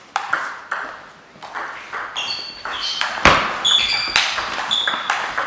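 Table tennis rally: the celluloid ball clicking off rubber bats and the table in quick succession. The hardest hit comes about three seconds in. Short high squeaks of sports shoes on the hall floor come in the middle of the rally.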